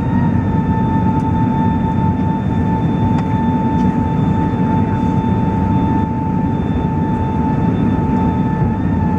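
Jet engines of a Qantas Airbus A380, Rolls-Royce Trent 900s, running with a steady high whine over a heavy rumble.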